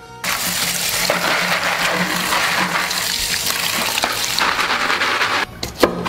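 Tap water running hard into a kitchen sink, an even rushing hiss that stops suddenly about five and a half seconds in. Near the end, a couple of sharp knocks of a cleaver chopping on a wooden cutting board.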